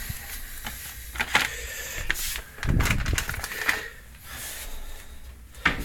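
Kitchen cupboard being opened and packets handled inside it: a few sharp clicks and knocks, with a louder muffled handling noise about three seconds in.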